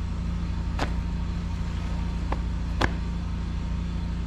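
A few sharp clicks and knocks of gear being handled while rummaging through a box of welding tools, three in all, over a steady low hum.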